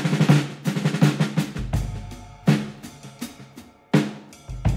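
Drum-led intro music: quick runs of snare hits with deep bass-drum hits about a second and a half in and again near the end.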